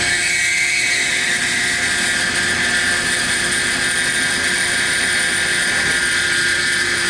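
CNC vertical mill cutting metal with an end mill under flood coolant: a steady, high-pitched machining whine from the spindle and cutter, with coolant spraying.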